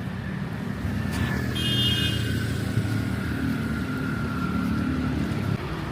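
A motor vehicle's engine running close by on a street, its whine slowly falling in pitch as it goes past. A short high beep sounds about a second and a half in.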